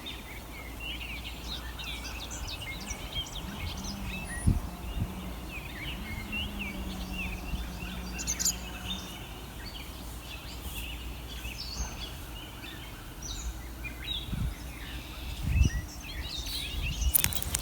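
Small birds chirping and twittering over a steady low rumble, with a couple of dull thumps about four and fifteen seconds in.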